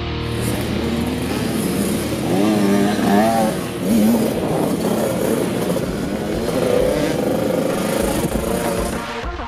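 Motocross dirt bike engines revving, rising and falling in pitch as the bikes accelerate and shift, with the strongest revs about two to four seconds in.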